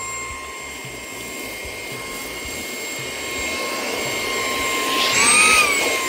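xCool cordless handheld vacuum cleaner with a high-speed brushless motor running at its high power setting: a steady high whine over a rush of air, sucking a pile of oatmeal and coffee off a paper plate. About five seconds in, the whine rises briefly in pitch with a burst of noise as the nozzle works over the plate, then settles back.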